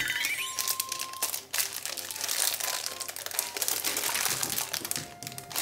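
Clear plastic wrapper crinkling in the hands as it is peeled off a lump of paw-print impression clay: a dense, irregular run of crackles.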